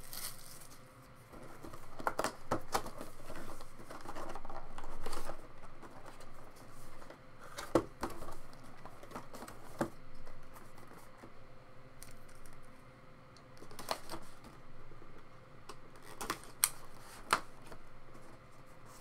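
Hands opening a box of Panini Prime Cuts trading cards: soft rustling of cardboard and packaging, broken by scattered sharp clicks and taps, a few of them louder about eight and ten seconds in and again near the end.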